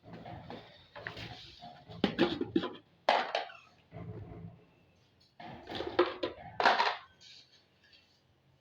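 Clattering and knocking of feed dishes and containers being handled, in two bouts of irregular knocks and scrapes, while bird seed and water are set out.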